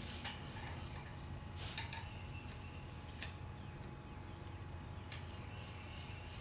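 A few sharp metal clicks and taps, spaced a second or more apart, from a long screwdriver working down the distributor bore of a VW 1600 engine to center the distributor drive gear shims. A low steady hum runs underneath.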